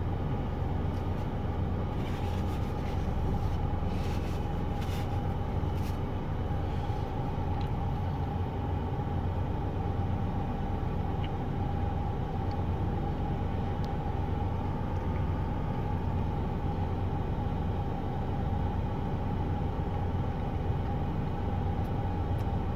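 Idling truck engine heard from inside the cab as a steady low hum that holds even throughout. A few faint rustles come in the first few seconds.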